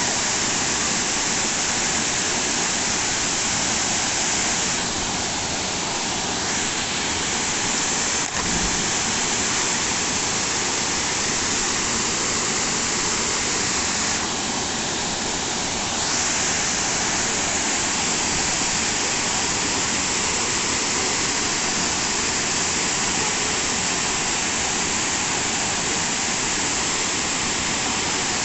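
Waterfall pouring over a rock ledge into a pool: a steady rush of falling water.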